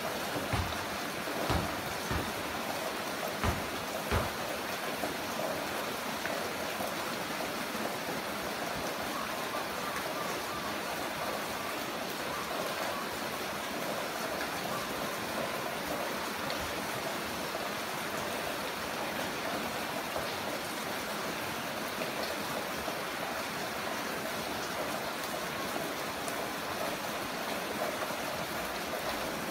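Heavy rain falling steadily as an even hiss, with a few short low thumps in the first few seconds.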